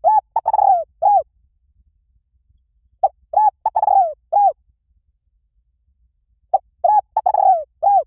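Spotted dove cooing its call phrase, a short note followed by rolling coos. The phrase repeats three times, about every three and a half seconds.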